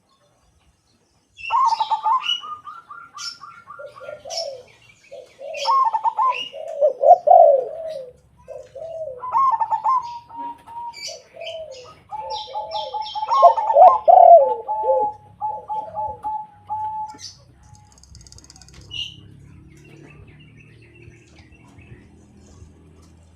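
A zebra dove (perkutut, silver crossbreed) and a white spotted dove (derkuku) cooing in turns. The perkutut gives higher, rapid stuttering coos and the derkuku lower rolling coos, with short high chirps among them. The cooing starts about a second and a half in and dies away after about 17 seconds, leaving a faint low hum.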